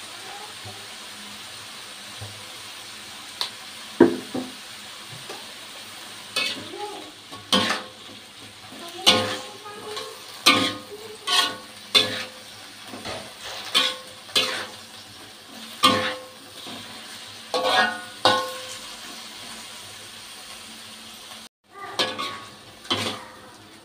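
A spatula scrapes and clanks against a wok as napa cabbage is stir-fried over a steady sizzle. The strikes start about four seconds in and come roughly once a second.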